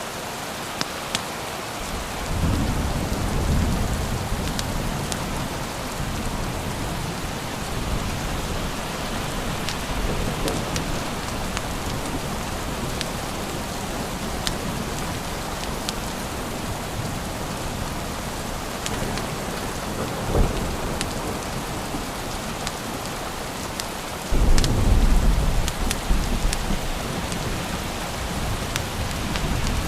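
Steady rain falling, with low rolls of thunder about two seconds in and again near the end, and scattered sharp ticks throughout.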